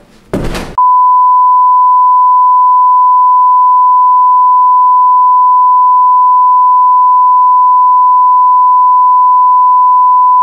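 A steady, unbroken single-pitch test tone, the kind played over a technical-difficulties card to signal a broadcast interruption. It cuts in sharply just under a second in and holds loud and level.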